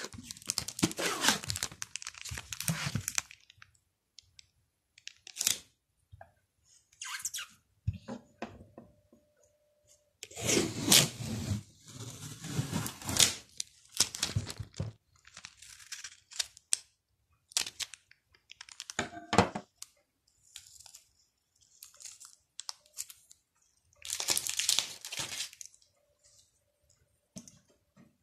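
Small printed paper labels being handled, with irregular bursts of crinkling and tearing paper and a few short sharp crackles between quiet gaps.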